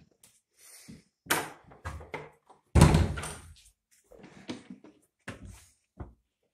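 Interior doors being shut and handled: a series of knocks and thuds, the loudest a heavy thud about three seconds in, with smaller knocks after it.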